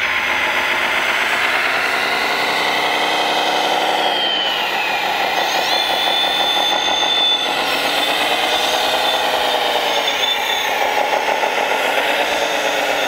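1/14-scale radio-controlled wheel loader driving over gravel and lifting its loaded bucket: its drive and hydraulics run continuously with a pitch that rises and falls again and again, and a thin high whine holds steady for about two seconds near the middle.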